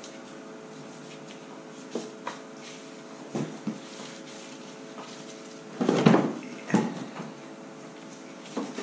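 Scattered metal knocks and clunks as a Ski-Doo MXZ 600RS two-stroke engine is shifted and worked out of the snowmobile chassis, the loudest a heavier clunk a little past halfway, over a steady hum.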